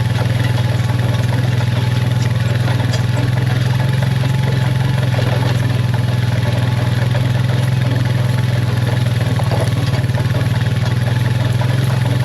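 Vehicle engine running steadily with a loud, even low hum.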